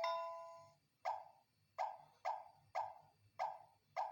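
M600 smart lock keypad: a short multi-tone chime, then six short beeps about half a second apart as the digits of the passcode are pressed.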